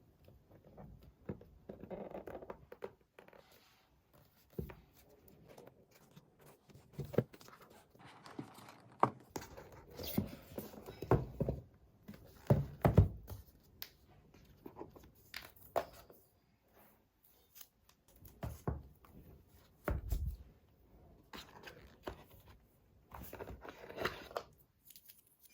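Packaging being handled and torn open at close range: irregular rustling, tearing and crinkling, with scattered clicks and taps.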